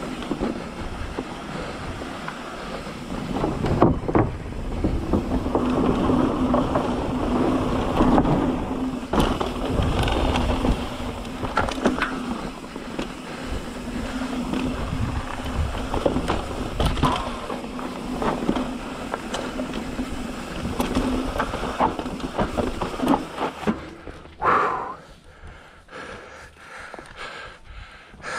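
Mountain bike rolling fast down a rocky dirt trail: tyres crunching over dirt and rocks, the bike rattling over bumps, and wind on the microphone, with a steady hum through the middle. Near the end it slows with a short squeal and comes to a stop, after which it is much quieter.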